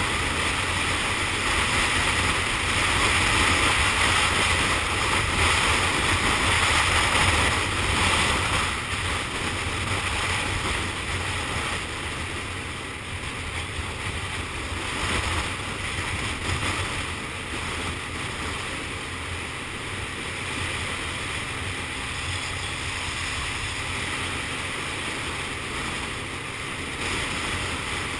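Steady wind rushing over the microphone of a motor scooter in motion, with the scooter's running and road noise beneath it. It is a little louder in the first several seconds, then eases slightly.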